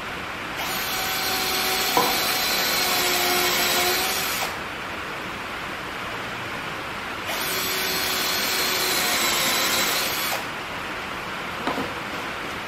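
Cordless drill driving long headlock screws through a 2x4 into a 4x4, in two runs of about three to four seconds each with a pause between. A couple of light clicks near the end.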